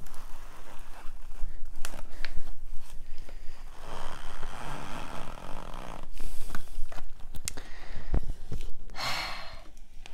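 Hands working green plant tape around a wet sphagnum moss pole: rustling and light clicks, with two raspy stretches of tape being pulled or torn, the louder and brighter one near the end.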